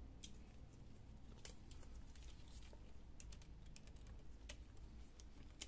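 Faint, irregular small clicks of a screwdriver working the screws on the metal brackets of a laptop LCD panel.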